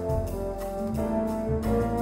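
Live jazz ensemble music: French horns and tuba holding sustained chords over double bass notes, with light drum and cymbal strokes.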